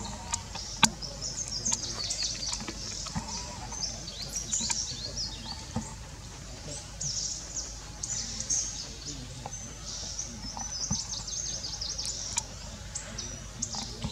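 Many short high-pitched animal chirps and squeaks, with a sharp click about a second in.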